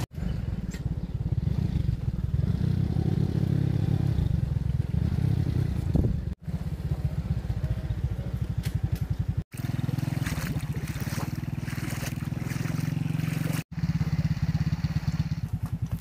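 Motorcycle engine running steadily, heard from the bike itself as it is ridden along a muddy dirt track. The sound cuts out for a moment three times.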